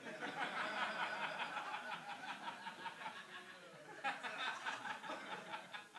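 Audience laughing at a joke, with a fresh wave of laughter about four seconds in before it dies away.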